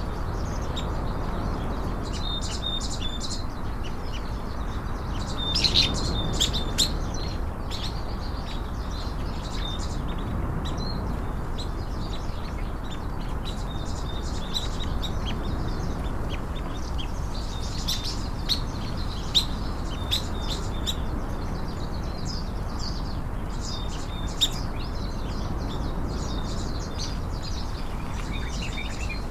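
Small birds chirping in short, repeated calls over a steady low background hum.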